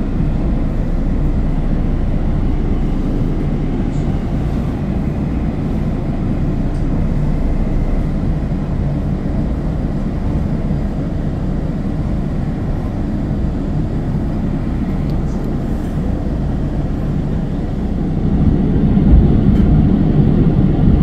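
Steady low rumble of a WMATA Metrorail 3000-series railcar running between stations, heard from inside the car. It gets louder over the last few seconds as the train pulls into the next station.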